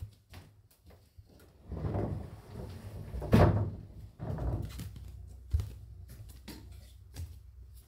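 Rustling and soft knocks and thuds of someone getting out of bed and walking out of the room, the loudest a sharp knock a little over three seconds in.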